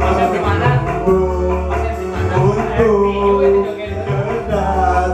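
Karaoke: a man singing into a microphone over a backing track played loud through speakers, with a steady bass line under the voice.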